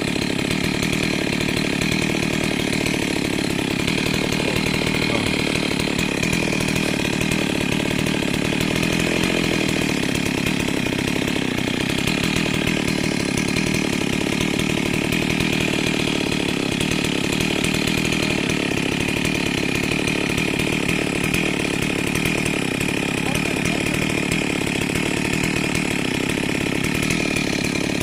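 Chainsaw running steadily, its pitch wavering slightly.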